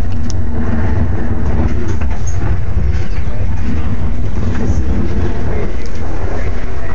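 Propeller aircraft engines running on the airport ramp: a loud, steady low rumble.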